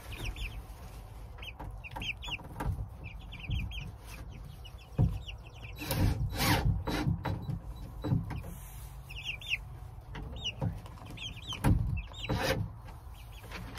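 Chickens clucking with repeated short, high chirping calls, over handling knocks and rustling close by; the loudest thumps come about five, seven and twelve seconds in.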